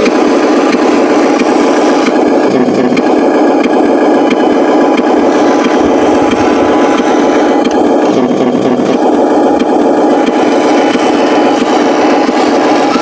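Huina 1501 RC Scania 770S logging truck running, a loud, steady engine-like drone with drivetrain noise. The upper part of the sound thins for a moment about two seconds in, and again about eight seconds in.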